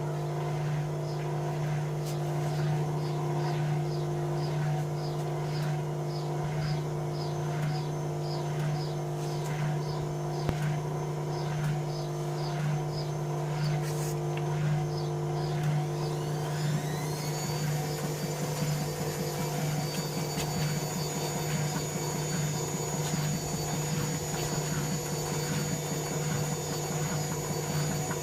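Bauknecht Dynamic WA 1460 Sports washing machine running, its motor humming steadily while the drum turns with a regular swishing rhythm about twice a second. About two-thirds of the way through, the motor's whine rises and then levels off as the drum speeds up into a spin.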